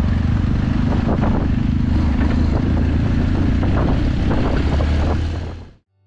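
Motorcycle running on the road, a steady low rumble under a hiss of noise with scattered knocks; it cuts off suddenly just before the end.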